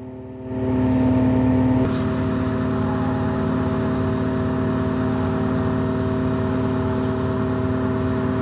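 A crane's engine running steadily under load as the hoist lifts the suspended cone, heard from inside the operator's cab; it swells about half a second in and then holds a steady drone with a hum of several fixed tones.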